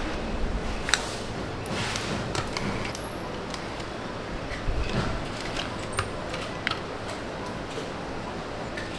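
Hard plastic electronic housings clicking and tapping as they are handled and set down on cardboard, a few scattered light clicks over a steady workshop background noise.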